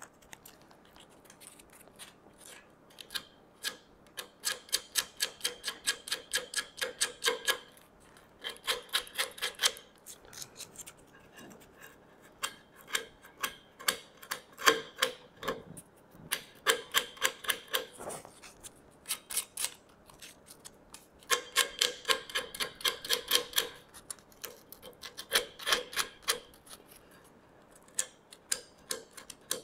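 A small folded piece of sandpaper rubbed by hand over the edge of a wooden frame joint to ease a sharp edge. It goes in bursts of quick back-and-forth strokes, about four a second, with short pauses between the bursts.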